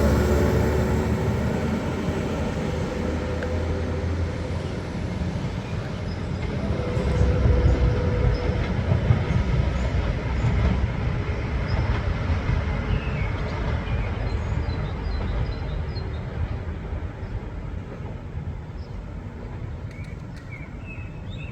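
A diesel train running through the station, its engine rumble and wheel noise steadily fading as it moves away.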